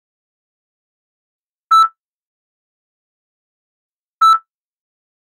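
Heart monitor beeping: two short, identical electronic beeps about two and a half seconds apart, each beep marking a heartbeat.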